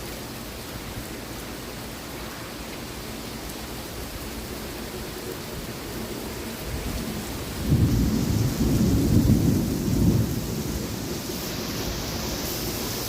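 Thunderstorm: steady rain, then a loud rumble of thunder about eight seconds in that lasts a few seconds and eases off.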